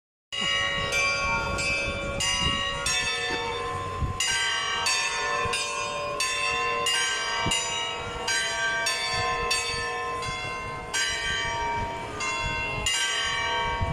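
Church bells chiming: several bells of different pitch are struck in quick succession, about two strokes a second, and their ringing overlaps into a continuous clangour.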